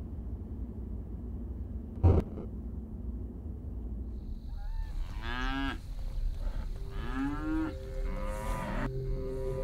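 Cattle mooing, several drawn-out calls in the second half, over a low steady rumble. A single sharp hit about two seconds in is the loudest sound.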